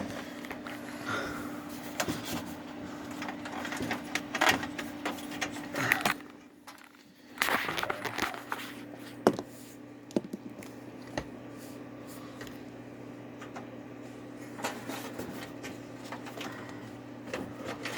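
Scattered clicks, taps and rattles of parts being handled inside a desktop PC tower case as the power button's wire is worked loose, over a steady low hum.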